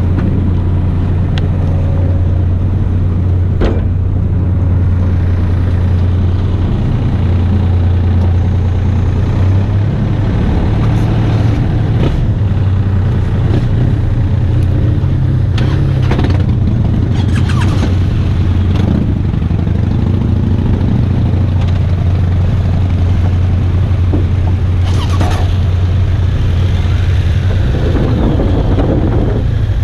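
Engine running steadily with a deep, constant low hum, with a few brief clicks along the way.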